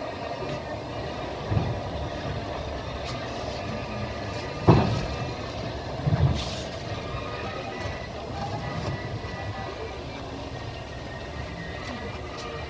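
Train running along the track, a steady rumble and rattle of the wheels on the rails, with three sharp knocks about one and a half, four and a half and six seconds in, the middle one the loudest.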